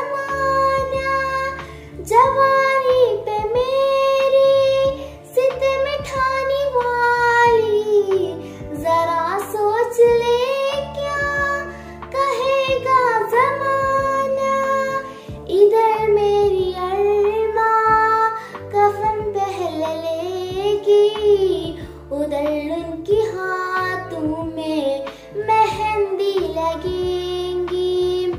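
A girl singing an Urdu song solo, with long wavering held notes and melodic runs, over a low steady accompaniment.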